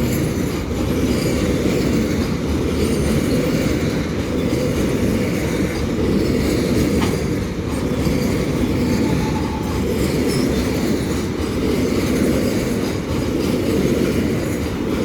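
Container freight train's wagons rolling past at a steady pace: a continuous low rumble of wheels on rail.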